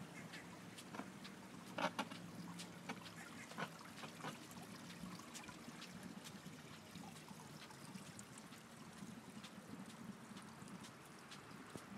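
Faint water trickling and lapping against a moored hull and the dock, under a low steady hum. A few sharp clicks stand out, the loudest about two seconds in.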